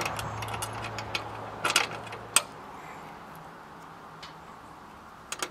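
Scattered small metal clicks and clinks of bolts being fitted and threaded finger tight into an electric radiator fan's metal shroud, with a sharper click about two seconds in. A faint low hum underneath stops about two seconds in.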